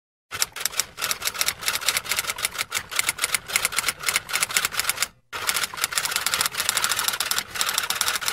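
Typewriter typing sound effect: a quick, even run of keystroke clacks, with a brief break about five seconds in.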